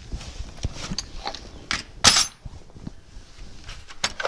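Metal hand tools clinking and clattering in a toolbox tray as it is handled and lifted out, with a louder clatter about two seconds in and another near the end.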